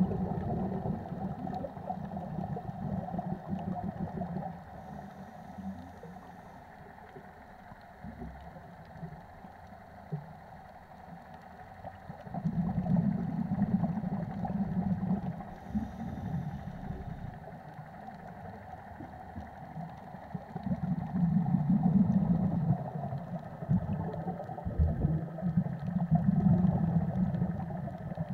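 Scuba diver's regulator breathing heard underwater: low bubbling exhalations swell up loudly about four times, with quieter stretches between.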